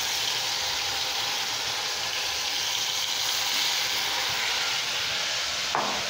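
Marinated chicken drumsticks sizzling steadily in hot oil in a frying pan over a high flame.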